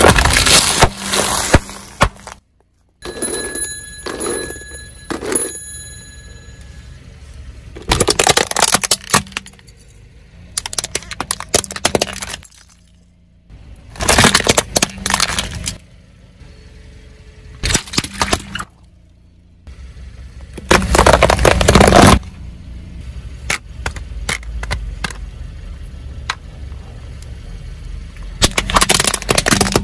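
A car tyre rolling over plastic objects and crushing them: about seven loud bursts of cracking, crunching and breaking plastic, a few seconds apart. About three seconds in, a few seconds of high electronic beeping tones sound.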